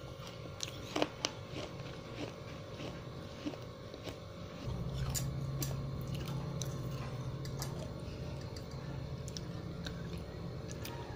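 Close-miked mouth chewing crunchy pieces of wet fired clay, with sharp crunches and clicks that are densest in the first few seconds and thin out later. About halfway through, a steady low hum comes in beneath the chewing.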